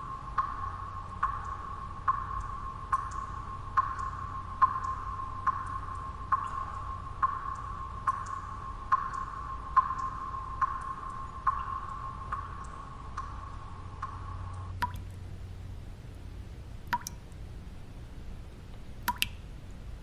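Water drops falling one at a time, each a short plink with a ringing tone, a little more than one a second over a faint steady low noise. About three quarters of the way through, the regular dripping stops and only a few scattered single drops follow.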